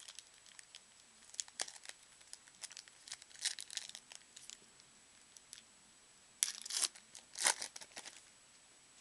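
Foil wrapper of a 2009 Donruss Threads football card pack crinkling and tearing as it is opened by hand, in short scattered crackles with louder rips about three and a half seconds in and twice near the end.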